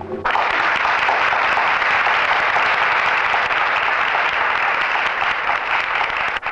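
Theatre audience applauding: steady, dense clapping that starts suddenly just after the start and cuts off just before the end.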